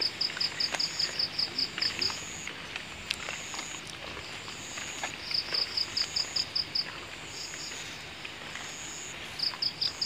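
Crickets chirping: runs of rapid high-pitched chirps, about seven a second, come and go in spells of a second or two (at the start, in the middle and near the end) over a steady high insect trill. A few faint ticks of footsteps through grass are heard beneath.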